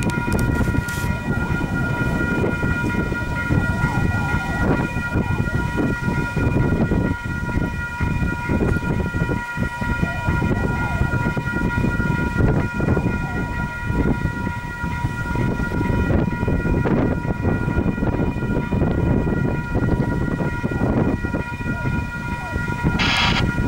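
Level crossing warning bells ringing continuously as a steady, unbroken set of high tones, over a low rumbling noise.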